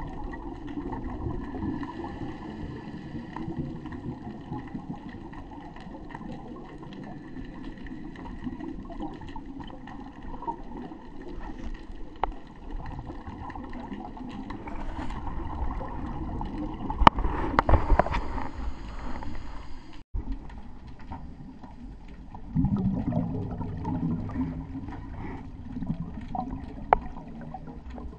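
Underwater sound of a scuba dive, muffled through a camera housing: a diver's exhaled regulator bubbles bubbling and gurgling in bursts, loudest a little past halfway and again near the end, over a faint steady hum.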